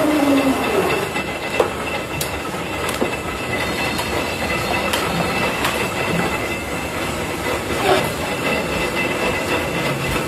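Factory machinery in a match factory running steadily, a dense rattling noise with a faint high whine and a few sharp clicks, the loudest of them about eight seconds in.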